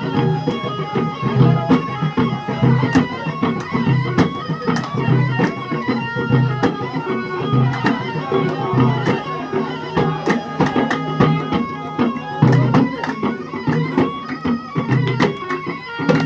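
Traditional Middle Eastern music: a reedy wind-instrument melody over a repeating drum beat with sharp hand-percussion strokes.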